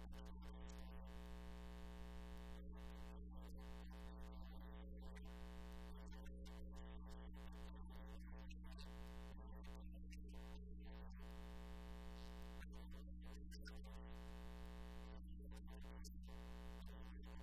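A faint, steady electronic drone that holds the same pitch throughout, with no melody or change.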